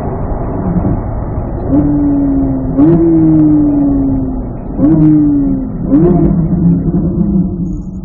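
Chevrolet C8 Corvette Z06's 5.5-litre flat-plane-crank V8 running under way. The engine note jumps up sharply three or four times, each time followed by a slow fall in pitch.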